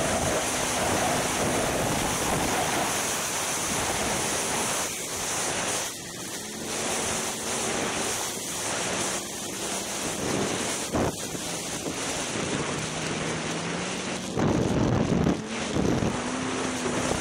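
Heavy wind rushing over the camera's microphone from a Polaris Rush Pro-R snowmobile under way, its engine running faintly beneath the wind noise. Near the end the engine note shifts in pitch and there are louder surges as the sled slows.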